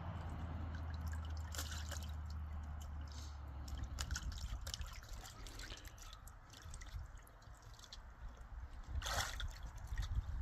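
Water dripping and sloshing, with scattered small splashes and a louder splash about nine seconds in, over a low hum that fades after the first couple of seconds.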